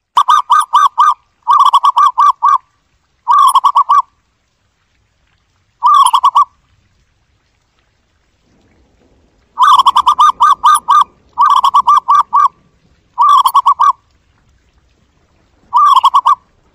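Zebra dove calling: eight short bursts of quick, staccato cooing notes, each burst a rapid run of a few notes, with silent gaps between bursts.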